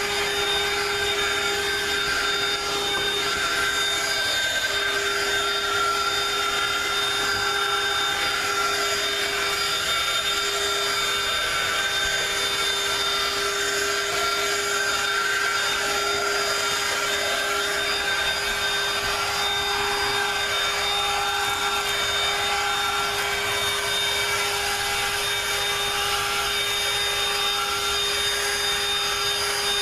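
Dirt Devil Quick Flip Pro cordless handheld vacuum running steadily with a high motor whine and a shifting rush of air as it is worked over car floor carpet.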